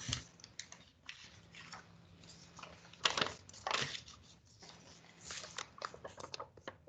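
A sheet of paper rustling and being creased as it is folded, in short crinkling bursts, the loudest about three seconds in and again just before four, with a run of small ticks near the end.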